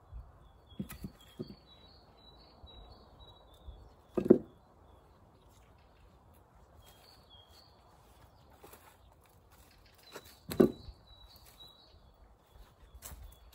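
A small songbird singing short phrases of quick high notes, repeated several times. Dull thumps and knocks break in now and then, the loudest about four seconds in and again about ten and a half seconds in.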